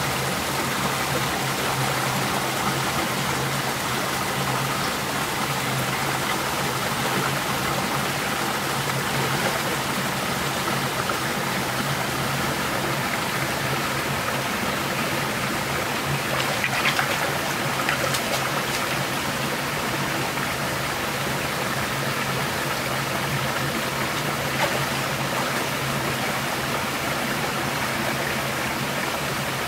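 Shallow rocky forest stream running steadily: a continuous rush of water over stones, with a few short, sharper sounds a little past halfway and again later.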